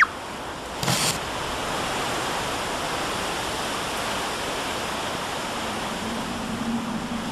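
Rough sea surf and wind in a storm: a steady rushing noise, with a short louder gust or wave burst about a second in. A faint low steady hum comes in near the end.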